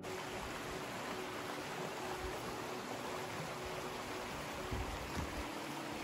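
Shallow creek water running over rocky riffles, a steady rushing, with a couple of soft low bumps about five seconds in.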